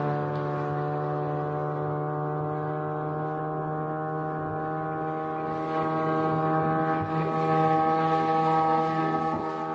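Motorboat engine running at a steady speed, an even droning note with many overtones, growing a little louder in the second half.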